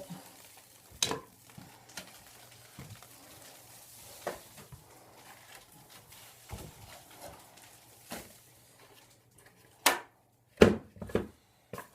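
Chunks of water-damaged, sagging lath-and-plaster ceiling being worked loose and brought down, with scattered knocks and clatters and a louder burst of several near the end.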